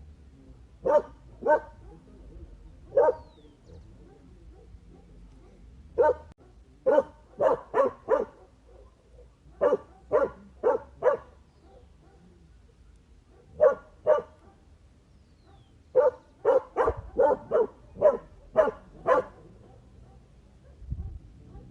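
A dog barking: sharp single barks in uneven groups of two to five, with pauses of a second or more between groups, about twenty barks in all.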